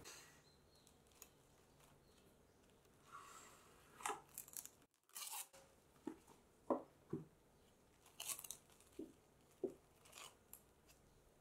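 Plastic cling film crinkling in a run of short, sharp crackles as it is stretched and pressed over a glass bowl.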